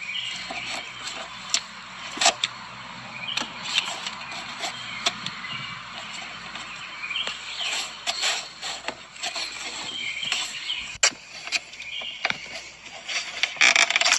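Pliers working a spring hose clamp off a rubber vacuum line on an engine intake: scattered metal clicks, knocks and scrapes as the clamp is squeezed and the hose is pried loose.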